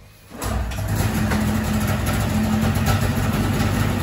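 Ski-Doo Formula Plus snowmobile's Rotax two-stroke twin starting about half a second in after being primed, then running steadily at idle. The idle screw has been turned up for a suitably high idle after the Mikuni carburettors were synchronised.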